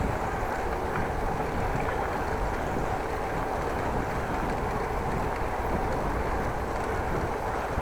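Wind buffeting the microphone of an action camera during a bicycle ride, a steady rough rumble with riding noise underneath.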